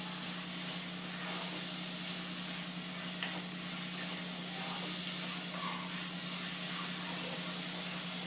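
Steady gentle sizzle of a coconut-and-jaggery mixture cooking in a kadai over a high gas flame, with a few faint scrapes of a wooden spatula as it is stirred; the mixture is nearly dry.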